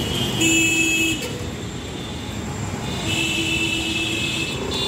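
Busy street traffic with motorbikes and scooters passing, and vehicle horns honking twice: a short honk about half a second in and a longer one about three seconds in.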